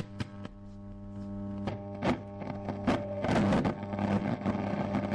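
Old radio crackling over a steady mains hum, with sharp clicks. From about two seconds in it grows into louder bursts of static with brief snatches of tone and music, like a dial swept across stations.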